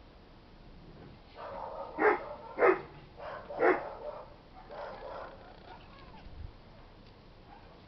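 Dog barking: three loud barks about two to four seconds in, with softer barks and yips around them.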